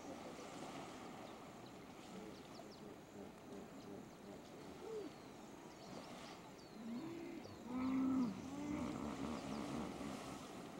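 A run of short, low calls from a large animal in the river, each rising and falling in pitch, starting about seven seconds in and loudest about a second later. Small birds chirp faintly over a steady background wash in the first half.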